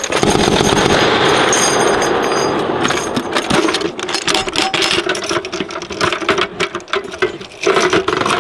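6.8mm M250 machine guns firing on full automatic: a long, dense burst for about the first three seconds, then more broken bursts of rapid shots.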